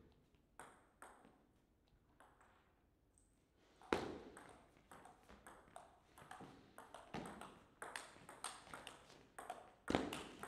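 Table tennis ball bounced a few times before the serve, then a rally: the ball clicking off the bats and the table in quick succession. A louder knock comes about four seconds in and another near the end.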